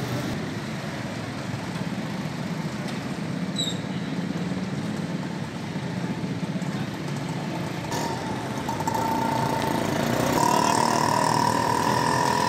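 Vehicle engine idling with a low steady rumble. About eight seconds in the sound gets louder, and a steady high tone joins it and holds.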